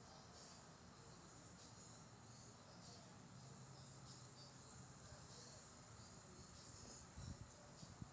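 Faint crickets chirping in a steady repeating pattern over a low wind rumble, with a few soft low thumps near the end.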